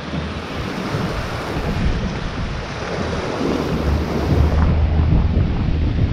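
Wind buffeting the microphone over the rush and splash of water along the hull of an RM 890 sailing yacht moving fast under sail. The low wind rumble grows heavier a little past halfway.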